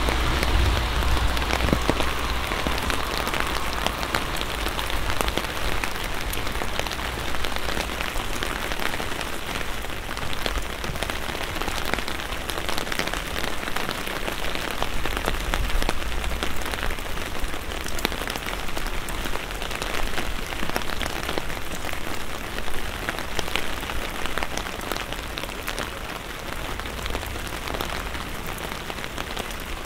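Gentle rain falling on an umbrella and the wet street, a steady patter dense with small drop taps, with a low rumble in the first few seconds and again about halfway through.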